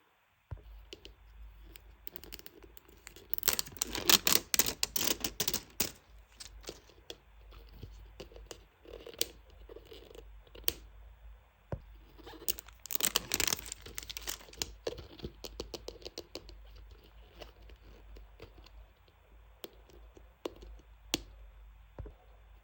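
Packaging being opened by hand: crinkling and tearing with scattered sharp clicks, in two louder bouts, one a few seconds in and one about halfway through.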